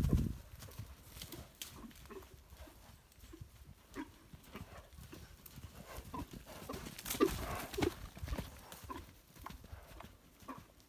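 Horse cantering loose on grass and soft dirt: a run of irregular, soft hoofbeats, loudest about seven seconds in.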